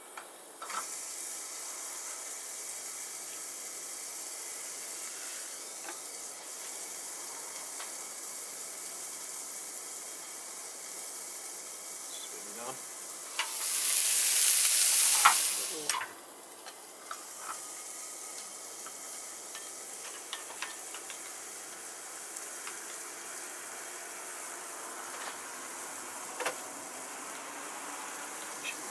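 Smashed burger patties sizzling on a griddle plate inside a kamado grill, a steady hiss muffled by the closed ceramic dome. About 13 seconds in, the lid is lifted and the sizzle turns much louder for around two and a half seconds, then drops back when the lid closes.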